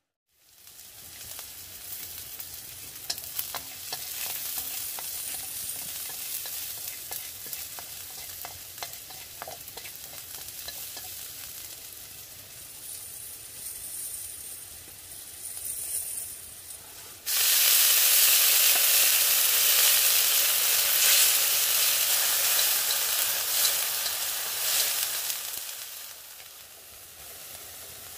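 Chopped garlic and chili sizzling in hot oil in a steel wok, with the light scrape and tick of stirring. About two-thirds through the sizzle jumps suddenly much louder as the small stream shrimp go into the oil, then dies down near the end.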